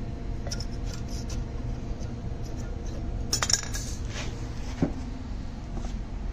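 Light metallic clinks from loose exhaust parts being handled on a concrete floor: a short cluster of clanks about three and a half seconds in and a single tap near five seconds, over a steady low hum.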